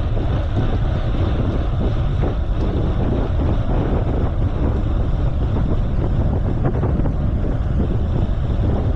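Wind buffeting the microphone of a camera on a moving bicycle: a steady, loud low rumble.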